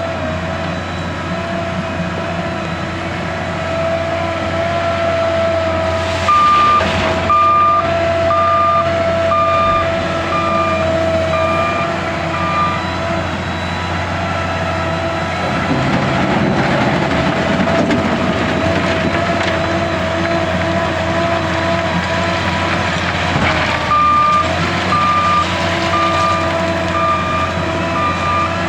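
L&T 9020 wheel loader's diesel engine running, its pitch shifting as it works, with the reversing alarm beeping steadily twice: about every two-thirds of a second, first for several seconds, then again near the end. Midway there is a rough, rumbling rush of noise.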